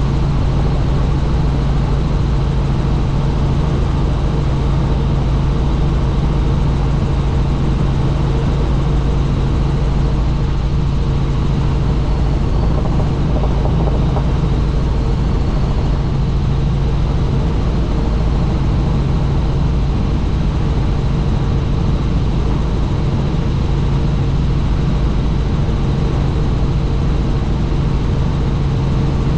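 Helicopter running steadily in flight: a constant low drone with a steady hum over rushing noise, unchanging throughout.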